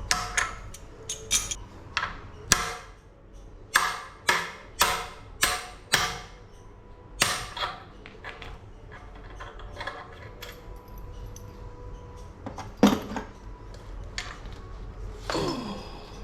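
Hammer blows on metal tools: about a dozen sharp strikes in the first eight seconds, some in quick pairs, then one more hard strike later. Near the end comes a short scraping sound that drops in pitch.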